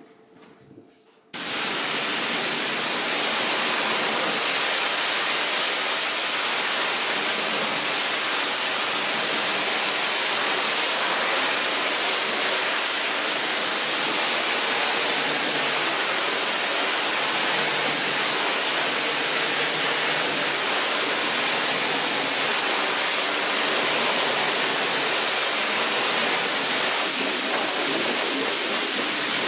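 A jet of water spraying steadily onto a carpet, starting suddenly about a second in.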